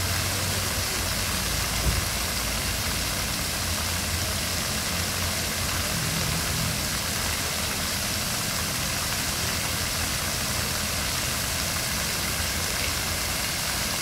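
Fountain jets spraying and splashing in a steady hiss, over a steady low engine-like hum, with one brief thump about two seconds in.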